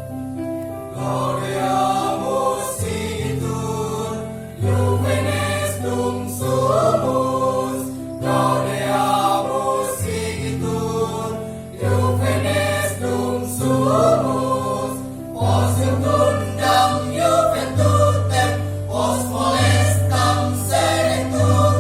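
Choir singing in several parts over held low notes that change every second or two.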